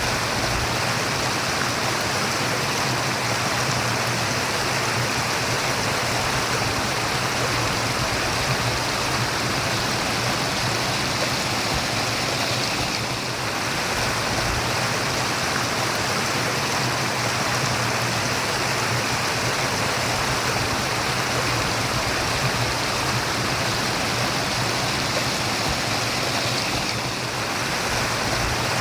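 Running water making a steady, even murmur, like a babbling stream.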